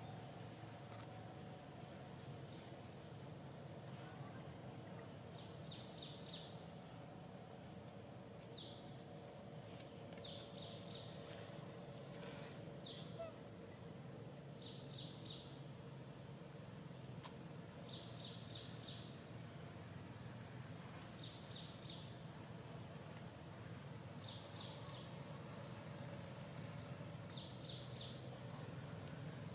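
Outdoor nature ambience: a steady high-pitched insect drone, with a bird repeating a short call of three or four quick notes every two to three seconds, over a faint low hum.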